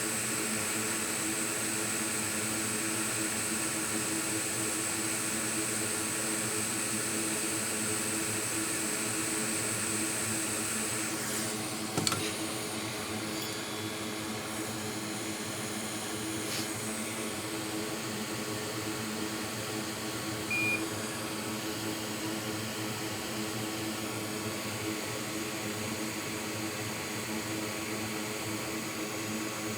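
Steady hum of a fan-driven machine, with a high whine that stops about eleven seconds in. A click comes about twelve seconds in, and a short beep near twenty-one seconds.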